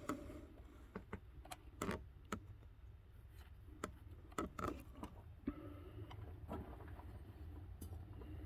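Faint, scattered clicks and light taps of hand tools and small parts being handled around the engine, about a dozen irregular knocks, over a low steady hum.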